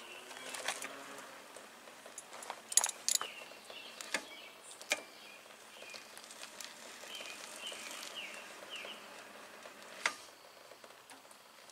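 Scattered metallic clinks and knocks of a coaster-brake bicycle rear wheel being fitted into the frame and its axle nuts worked with a wrench, the loudest a pair of knocks about three seconds in and another about ten seconds in. Faint bird chirps in the background.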